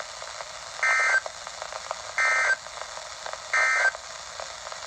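Emergency Alert System end-of-message data signal: three short, harsh digital bursts, evenly spaced about a second apart, over radio hiss. They mark the end of the alert.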